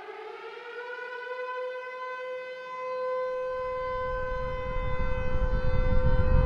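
A siren winds up, rising in pitch over the first second and then holding one steady wailing tone. About halfway through, a deep rumble comes in beneath it and grows steadily louder.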